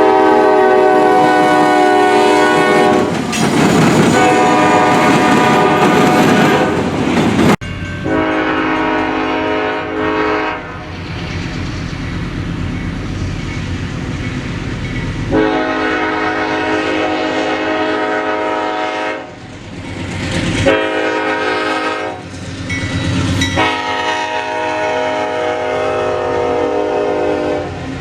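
Locomotive air horn sounding a chord in a series of long blasts, over the running noise of a passing train with wheels clattering on the rails. The sound breaks off abruptly about seven and a half seconds in and resumes with another blast.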